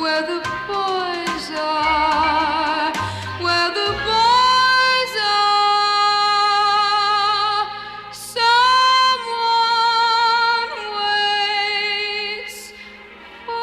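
Music: a 1960 pop ballad with a female voice, holding long notes with vibrato over the accompaniment.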